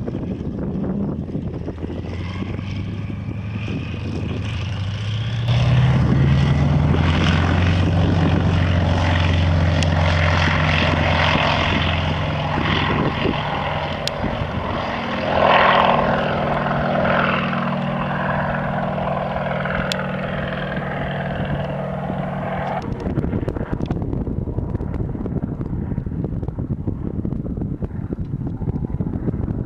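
Yak-50's nine-cylinder M-14P radial engine running at low power on the runway, then opening up to full takeoff power about five seconds in. It is loudest as the plane passes the microphone about halfway through. The engine sound breaks off suddenly about two-thirds of the way in, leaving a rushing noise.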